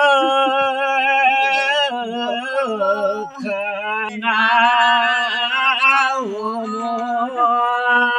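Elderly Nepali villagers singing a traditional song unaccompanied, in long held notes with downward slides between phrases.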